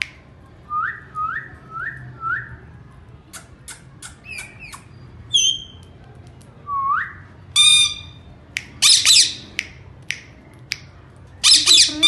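Indian ringneck parrots calling: four short rising whistles about a second in, scattered clicks, then several loud squawks in the second half.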